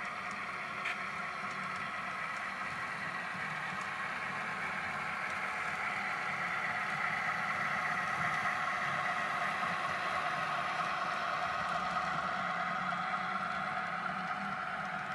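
Model diesel locomotives pulling a freight train past at close range: a steady motor-and-gear whine that swells as the locomotives come nearest, around the middle. A single sharp click about a second in.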